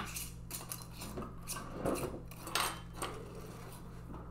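Metal screw bands clinking and scraping against the lids and glass of filled mason jars as they are set on and twisted down by hand: a scatter of light, irregular clinks.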